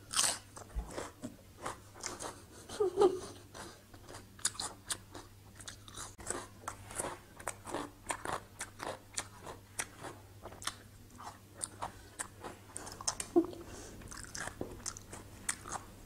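Close-miked chewing of a mouthful of raw salmon salad and crisp fresh vegetables: a steady run of crunches and wet mouth clicks, a few each second.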